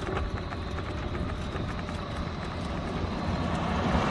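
A car approaching along the road, its engine and tyre noise growing steadily louder toward the end, over a low outdoor rumble.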